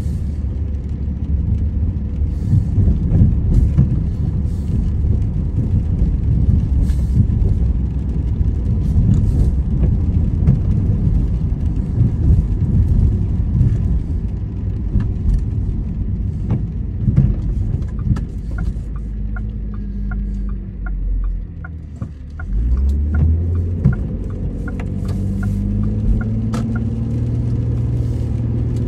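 Car cabin noise while driving on a wet road in rain: a loud low rumble of engine and tyres. Past the middle, a regular light ticking at about two to three a second runs for several seconds. After a brief lull the engine note rises as the car moves off.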